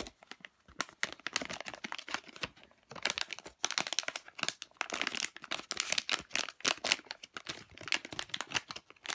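Shiny plastic blind-bag packaging crinkling and tearing as it is opened by hand: a dense, irregular crackle, sparse at first and busier from about three seconds in.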